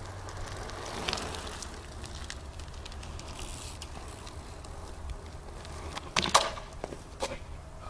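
2010 Eastern Growler BMX bike being ridden on pavement, its tyres rolling with a steady rumble. A sharp clattering knock about six seconds in is the loudest sound, with a smaller knock about a second later.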